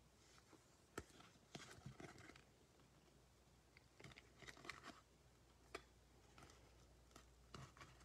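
Near silence with faint, scattered clicks and scrapes of clear hard plastic card holders being handled and set down on a table.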